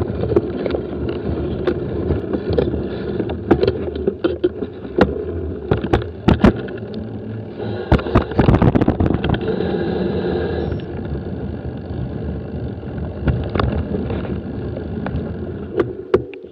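Bicycle riding over a rough unpaved track: steady rumble of tyres and wind, with frequent sharp knocks and rattles as the bike jolts over bumps, roughest about eight to eleven seconds in.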